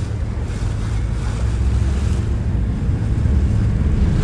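Ferry engine droning steadily, with wind buffeting the microphone in gusts and the wash of water along the hull.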